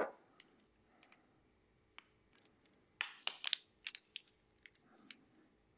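Small hard parts being handled: hex bits and metal mount pieces clicking and tapping, with a knock right at the start and a quick run of sharp clicks about three seconds in.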